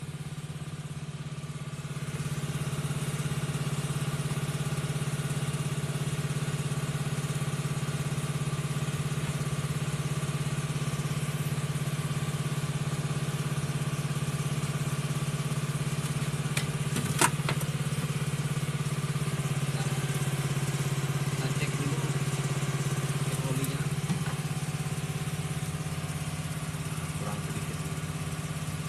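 Suzuki Carry T120SS engine idling steadily after being refilled with fresh engine oil. It begins abruptly and gets a little louder about two seconds in.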